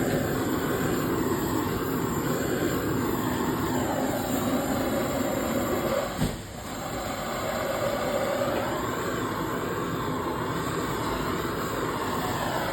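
Steady rushing roar of a blowtorch flame heating a heat-shrink cable joint, with a single brief knock about six seconds in.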